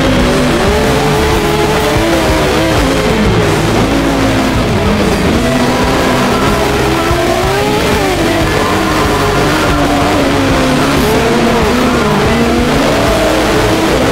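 A 600 cc kart cross engine, heard from on board, revving hard. Its pitch climbs and drops repeatedly as the driver goes on and off the throttle through the bends and gears. Wind and tyre noise run steadily underneath.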